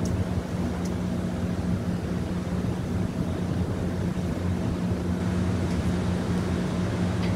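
Steady mechanical hum of a MARC commuter train idling at the platform, its bi-level coaches' equipment and locomotive running, holding one low drone throughout.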